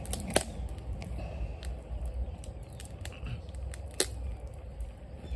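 Wood fire crackling under a cooking pot of not-yet-boiling water, with scattered small clicks and two sharp snaps, about half a second in and about four seconds in.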